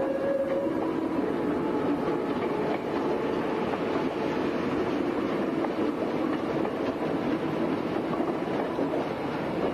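Meitetsu electric train running past on its rails with steady rolling and wheel noise. The last note of its music horn ends about half a second in.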